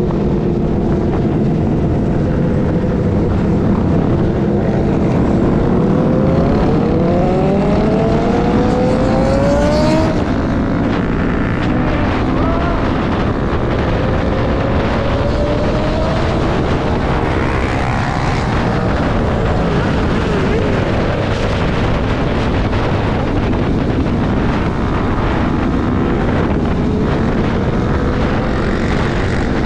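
Dirt bike engine running hard at highway speed, winding up in pitch for a few seconds before dropping back about ten seconds in, with heavy wind rush over the microphone.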